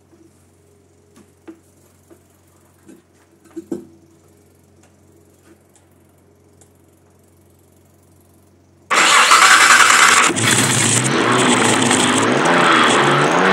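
Nissan L-series straight-six with a home-built crossflow head fed by six Keihin FCR carburetors. A few faint clicks, then about nine seconds in the engine comes in abruptly and loudly and runs with throttle blips that rise and fall in pitch.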